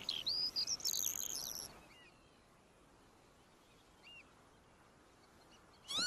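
Skylark chicks chirping in short, high-pitched calls for the first couple of seconds, then falling nearly quiet with one faint chirp. A louder, arched bird call starts right at the end.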